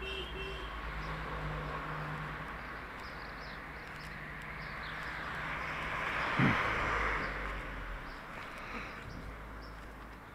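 A car driving past on the street, its tyre and engine noise swelling to a peak about six seconds in and then fading, with a single sharp thump at its loudest point. Birds chirp now and then in the background.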